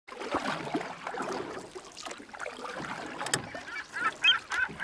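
Water lapping and knocking around a boat, then a run of short bird calls starting about three and a half seconds in.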